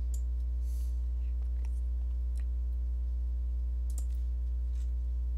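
A steady low electrical hum on the recording, with a handful of sharp computer mouse clicks, the sharpest about four seconds in.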